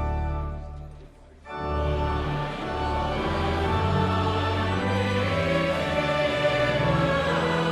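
An organ chord fades out about a second in; after a brief pause a choir begins singing a hymn with instrumental accompaniment.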